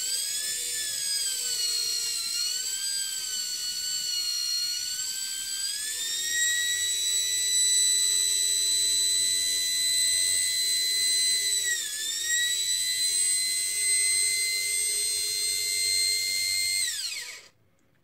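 Bare vacuum-cleaner universal motor, carbon brushes freshly fitted and its fan not yet on, running at full speed with a high-pitched whine that wavers at first, climbs about six seconds in, dips briefly near the middle, then winds down and stops near the end. No bearing rattle is heard: the bearings are in good condition.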